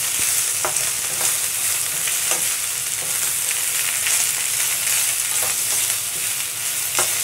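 Greens and garlic sizzling as they are sautéed in a stainless steel skillet, stirred with a wooden spoon, with a few light knocks and scrapes of the spoon against the pan.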